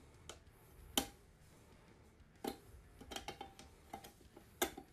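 Scattered sharp metal clicks and taps from an AK-pattern shotgun's receiver dust cover and its spring-loaded catch being worked into place during reassembly. The loudest click comes about a second in, and there is a quick cluster of lighter ones a little past the middle.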